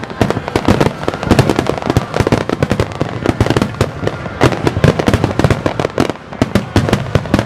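Fireworks display: a rapid, dense barrage of bangs and crackles, many bursts a second overlapping one another.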